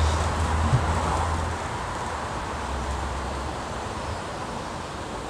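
Outdoor ambience: a steady rushing background, with a low rumble through the first three and a half seconds that then fades.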